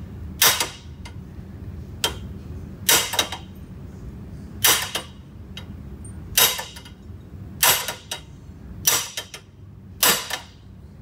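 A soft-faced mallet strikes the top of a mud-motor lower-unit drive shaft clamped in a bench vise, about seven firm blows roughly one every second and a half, each with a short metallic ring. The blows drive the shaft's bearing back until its inner race seats against the new bushing.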